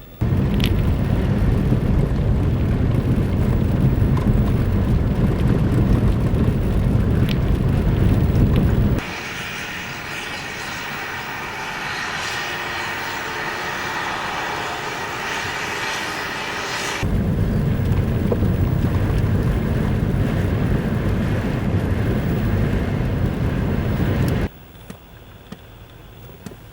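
Strong blizzard wind blasting the microphone in a deep, steady rumble. It is broken by abrupt cuts: a thinner, higher hiss with a faint whine in the middle, then the rumble again, then it drops much quieter near the end.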